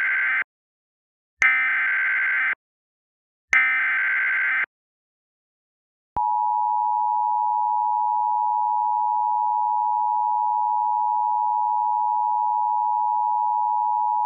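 Emergency Alert System tones for a severe thunderstorm warning: the SAME header's data bursts, the last part of one and then two more of about a second each with silent gaps between, followed about six seconds in by the steady two-tone attention signal.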